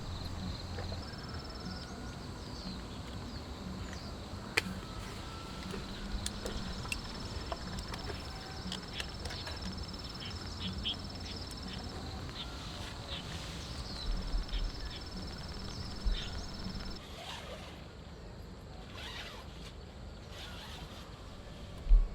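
Outdoor camp ambience: a steady background hiss with a thin high tone that comes and goes in stretches, scattered small clicks and knocks, and a single sharp thump near the end.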